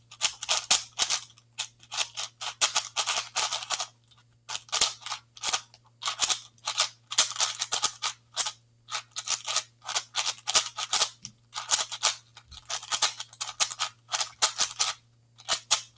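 X-Man Shadow 6x6 speed cube, non-magnetic and still dry and unlubricated out of the box, being turned by hand: quick runs of plastic clicking and clacking layer turns, broken by brief pauses.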